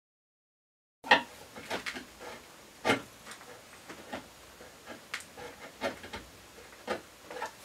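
Narrow wood chisel chopping and paring out a small mortise in a wooden box collar: irregular sharp taps and scraping clicks of the steel edge in the wood, starting about a second in.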